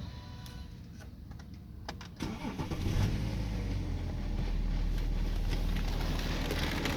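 BMW 530d GT's N57 straight-six diesel, after a few clicks, cranking and catching about two seconds in, then idling steadily. It has a rattle that the owner suspects is a loose timing chain.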